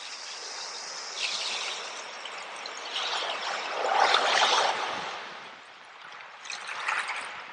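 A small stream of water running and trickling, its splashing swelling louder a few times, most strongly about four seconds in.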